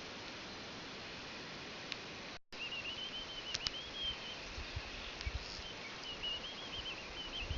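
A steady faint hiss, then after a brief dropout a small bird singing a continuous, wavering, twittering song, with a few low thumps underneath.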